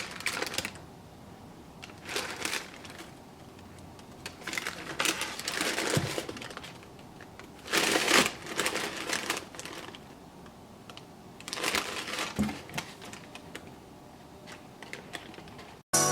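Printed tissue wrapping paper rustling and crinkling in irregular bursts as a pair of running shoes is unwrapped and handled.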